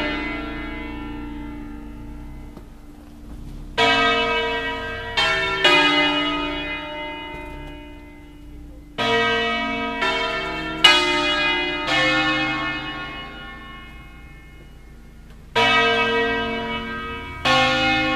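Full-circle church bells of an eight-bell ring in B-flat (Pruneri, 1909) being rung electro-manually in the Bergamasque concerto style. Strokes come in small clusters: three a few seconds in, four more around the middle, and two near the end. Between clusters the notes ring on and slowly fade.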